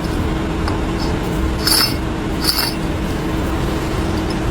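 Two light metallic clinks, the second under a second after the first, over a steady low hum.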